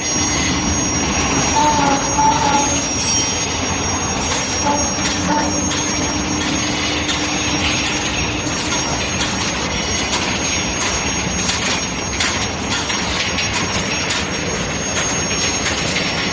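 Steel ball forging line with an induction furnace running: a loud, steady machinery noise with a thin high whine, over which metal parts clank and clatter many times.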